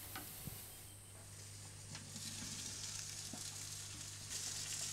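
Faint sizzling from a turkey roasting on a Weber Q gas barbecue, getting a little louder about two seconds in, with a few light clicks.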